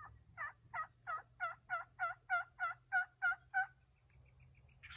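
Turkey yelping: a series of about eleven evenly spaced notes, roughly three a second, growing louder toward the end.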